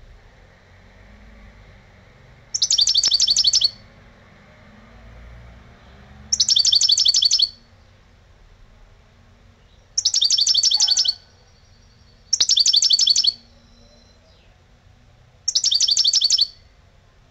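European goldfinch (Carduelis carduelis) singing in five short bursts of rapid, repeated high notes, each about a second long, with pauses of a few seconds between them.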